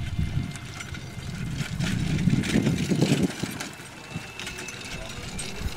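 A pony-drawn carriage passing close on grass: a low rumble of the wheels and hooves that swells, is loudest about two to three seconds in, then fades.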